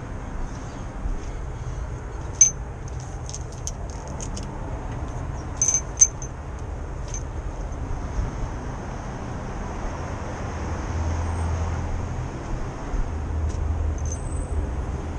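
Small metal clinks and clicks of hand tools and motorcycle parts being handled, sharpest about two and a half and six seconds in, over a steady rumble of street traffic.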